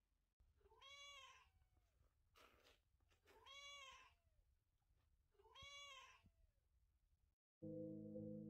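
Ginger tabby kitten meowing three times, about two seconds apart, each meow rising then falling in pitch, with a short breathy sound between the first two. Music starts near the end.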